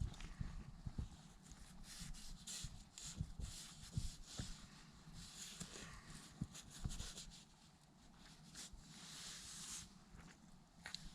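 Wind gusting against a tent, with fabric rustling and a few light knocks from things being handled inside.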